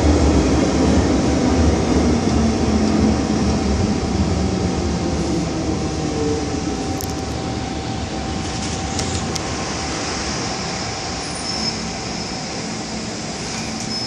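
Cabin noise inside an MTR M-Train electric multiple unit as it slows into a station: running rumble with a faint steady whine, fading as the speed drops.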